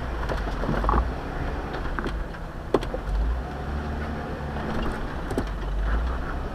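Jeep engine running at crawling speed, a steady low rumble, with scattered sharp clicks and knocks as it works over rocks; the loudest click comes a little under three seconds in.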